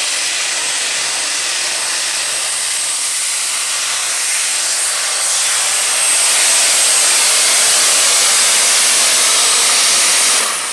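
John Deere heavy super stock pulling tractor's turbocharged diesel engine at full power under the load of the sled, a loud rushing roar with a steady high turbo whistle. It grows louder about six seconds in and breaks off sharply near the end.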